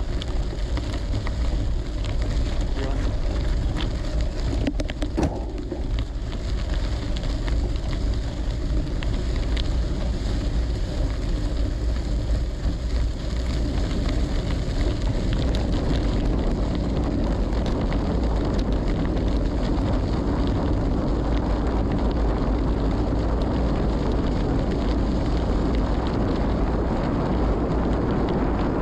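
Wind rumbling on the microphone over the crunch of Maxxis Rambler gravel tyres rolling on dirt, the tyre noise growing louder from about halfway in.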